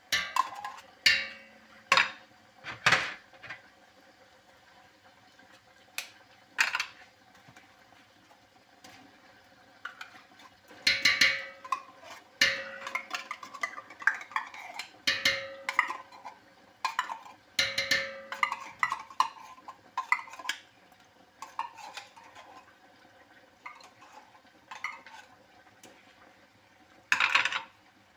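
Metal pots and utensils clinking and knocking: scattered sharp clanks with short metallic ringing, coming in clusters with quieter gaps between.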